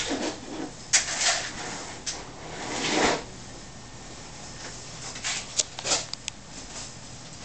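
Handling noise: a few brief rustling swishes, then a quick run of light, sharp clicks about five to six seconds in, as things are moved about on the table.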